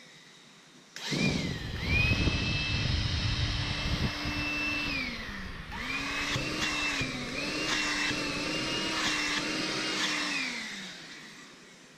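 Makita DCL180Z 18V cordless stick vacuum switched on with a rising whine and running steadily for about four seconds, then switched off and winding down. It is switched on again about a second later, runs for about five seconds, and winds down near the end.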